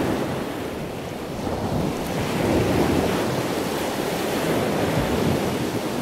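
Surf breaking and washing ashore, swelling and easing every few seconds, with wind buffeting the microphone.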